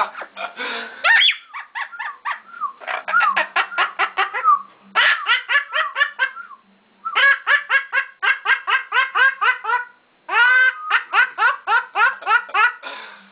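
Pet parrot laughing: several long runs of quick, even ha-ha-ha notes, about seven a second, with short breaks between the runs.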